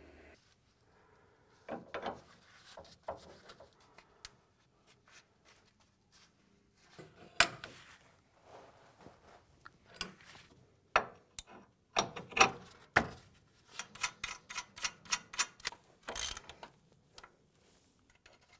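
Hand ratchet clicking as it turns the hub bearing bolts on a Chevy Silverado's front steering knuckle. Sharp metal knocks come in between, and a quick run of ratchet clicks comes near the end as the wheel bearing hub assembly is worked loose.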